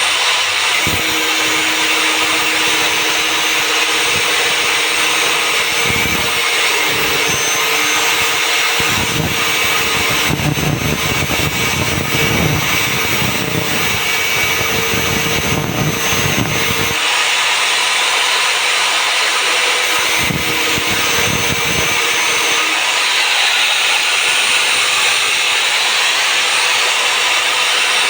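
Angle grinder running steadily at speed with a constant whine, cutting through a faucet. The grinding turns heavier and rougher from about a third of the way in to past the middle, as the disc bites into the faucet.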